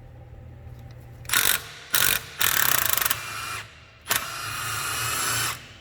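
Impact wrench with a 22 mm socket rattling in four bursts, the last and longest near the end, as it works on the top nut of a compressed front strut.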